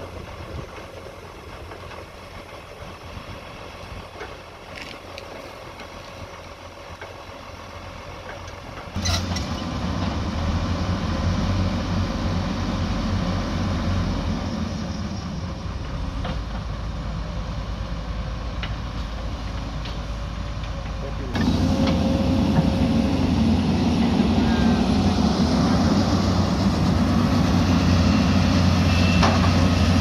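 Diesel engine of a Hyundai 220 crawler excavator running steadily at work. The sound jumps louder in two sudden steps, about nine seconds in and again a little past twenty seconds, ending as a strong low steady engine hum.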